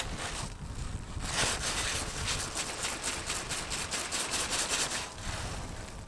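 Wind rumbling on the microphone, joined for a few seconds in the middle by a crackling hiss of jacket fabric rustling as the arm works the rod.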